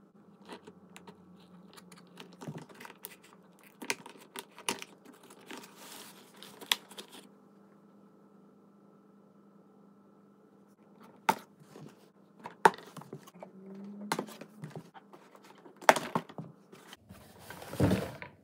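Cardboard toy packaging being handled as items are taken out of it: scattered sharp clicks and taps, a quiet pause midway, then a longer rustling scrape of cardboard near the end as the plush dolphin is pulled free of the box.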